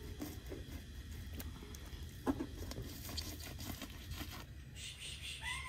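A knife cutting and tearing meat and membrane away from a raw ram carcass, with soft crackling and tearing and one sharp knock about two seconds in. Near the end a cat starts to meow.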